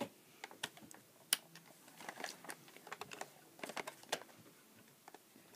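Faint, irregular clicks and taps of fingers handling the plastic underside of a toy RC car around its battery cover and switch, while it is being switched on.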